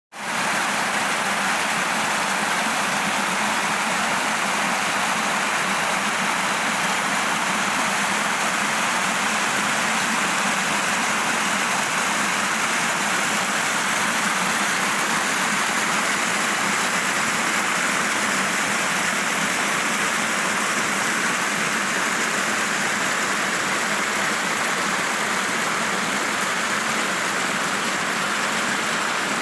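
Steady rushing of running water, an even hiss with no breaks or distinct events.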